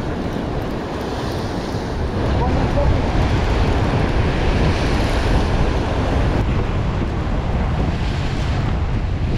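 Rough surf breaking on lava rocks, with wind buffeting the microphone in a deep rumble; it gets louder about two seconds in.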